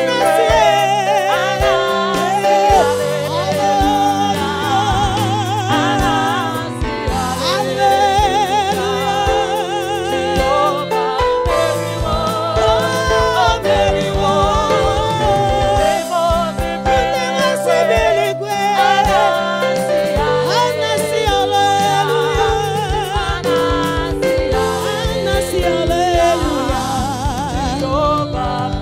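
Live gospel worship music: singing voices with wide vibrato over a band with bass and a steady drum beat.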